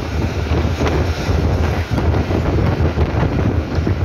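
Wind buffeting the microphone of a phone held out of a moving train, over the train's steady low running rumble.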